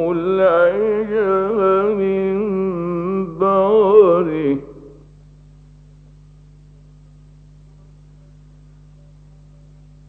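Male voice reciting the Quran in a slow, ornamented melodic chant, holding and bending long notes; the phrase ends about five seconds in. After it comes a pause with only the steady low hum of an old radio recording.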